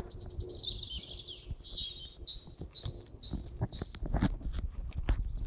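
A small songbird singing: a twittering phrase, then a run of about six repeated clear notes, each opening with a downward slur. From about four seconds in, irregular crackling of dry leaves and twigs underfoot takes over.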